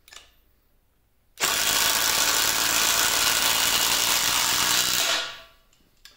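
Brushed cordless impact drivers hammering steadily as they drive long lag bolts into wood. The loud rattle starts suddenly about a second and a half in, holds for nearly four seconds, and trails off as the bolts seat.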